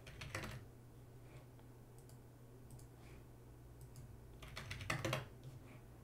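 Computer keyboard keys tapped in two short bursts, one at the start and one about four and a half seconds in, over a faint low steady hum.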